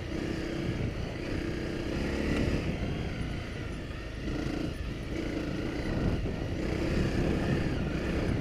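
Honda CRF250 Rally's single-cylinder four-stroke engine pulling the bike along a soft sandy track. Its note comes and goes in stretches as the throttle is worked, over a steady rumble of riding noise.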